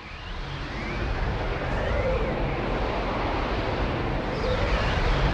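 A magic sound effect: a deep, rumbling noise that swells in over about the first second and then holds steady, with faint wavering whistle-like tones drifting through it.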